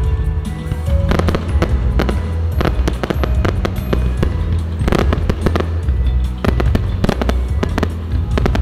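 Fireworks bursting in a rapid, irregular string of bangs, over loud music with a steady bass line.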